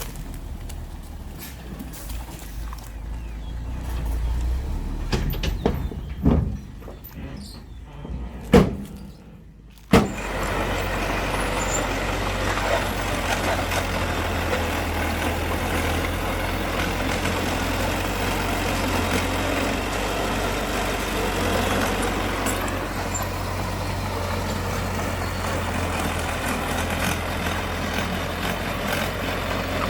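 Heavy diesel earthmoving machinery running steadily. A few sharp thumps come first, then the engine sound starts suddenly about a third of the way in.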